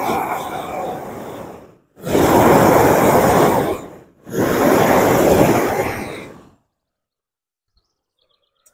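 A hand torch's flame rushing as it scorches wood, in three bursts of about two seconds each with brief breaks between them. It cuts off abruptly about two-thirds of the way through.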